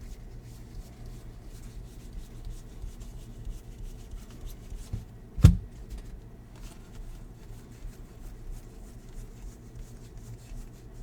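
Soft rubbing and sliding of baseball cards being handled and sorted, with one sharp knock about halfway through, over a steady low hum.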